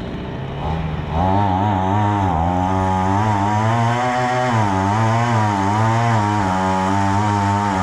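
A small engine running, its pitch wavering up and down as the speed varies. It gets louder about a second in.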